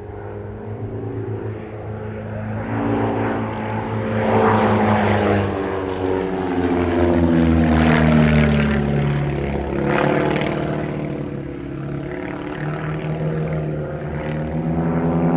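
Two Van's RV-7 and RV-8 propeller planes flying aerobatics in close formation, their piston engines and propellers running together as they climb and dive through a loop. The engine note falls in pitch through the middle and then steadies, swelling louder several times as the pair pass.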